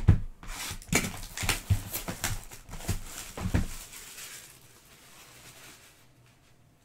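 Cardboard Donruss Soccer hobby boxes of trading cards being handled and set down on a table: a sharp knock right at the start, then a run of lighter knocks and rustles over the next few seconds, dying away near the end.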